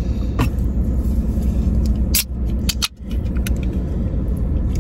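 Steady low rumble of a car on the road, with a few sharp clicks and a brief drop in level about three seconds in.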